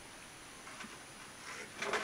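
A few short scrapes and clicks, louder near the end, over a faint, steady background.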